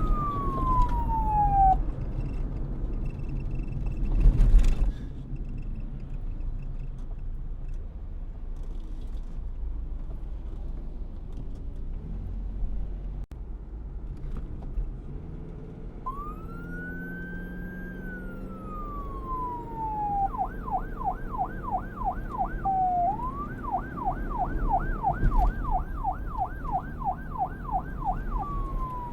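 Electronic emergency-vehicle siren over low traffic rumble. It opens on a falling wail that fades out, then after a loud knock and a long stretch of street noise it comes back as a slow wail. It then switches to a fast yelp of about three to four sweeps a second, breaks off briefly, yelps again, and returns to a falling wail near the end.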